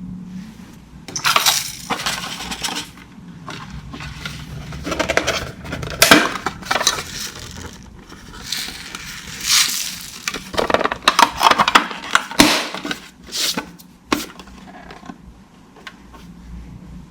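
Slime being squeezed and mixed by hand, giving irregular crackling, clicking and crunching noises in uneven bursts.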